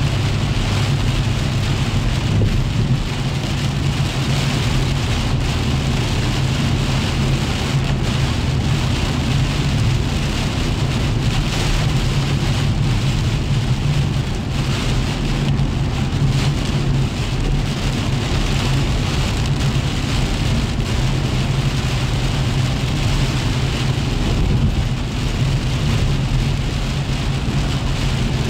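Heavy rain falling on a car's roof and windshield, heard from inside the cabin, over a steady low rumble of the engine and tyres on the wet road.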